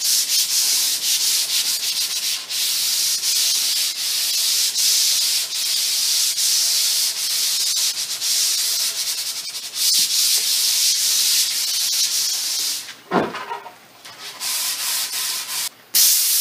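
150-grit sandpaper rubbed by hand over a solid cherry tabletop in back-and-forth strokes along the grain: a light final smoothing pass before finishing. The rubbing stops about thirteen seconds in with a knock, and near the end there is a short, loud hiss.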